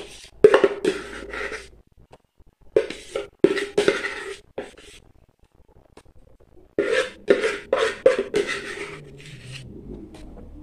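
Quick scraping and tapping strokes on a plastic mixing bowl as beaten egg whites are scraped out of it, in three short bursts with pauses between.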